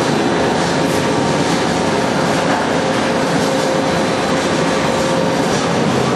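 Wood sawdust pellet mill running: a loud, steady mechanical rumble and rattle with a constant hum through it.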